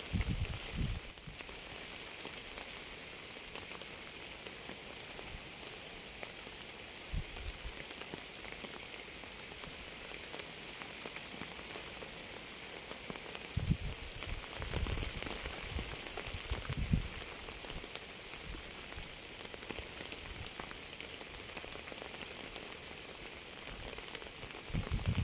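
Steady rain falling and pattering on a surface, an even hiss. A few brief low rumbles come through, at the start and again in the middle.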